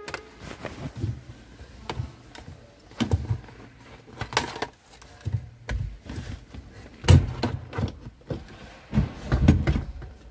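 Irregular clicks and knocks of parts and screws being fitted by hand back onto a Hyundai Grand i10's steering column, loudest about seven seconds in and again near the end.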